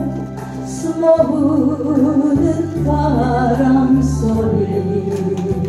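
Singing over a music backing track, the voice holding long notes that waver with vibrato.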